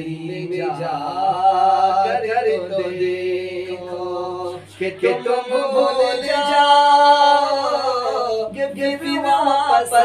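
Man's voice singing an Urdu naat unaccompanied, in long held notes that bend and glide in pitch, with a short break for breath about halfway through.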